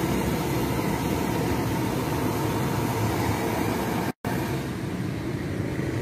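Steady rushing noise with a low rumble: the gas burner under a street vendor's large steamer, with road traffic passing. It drops out for an instant about four seconds in.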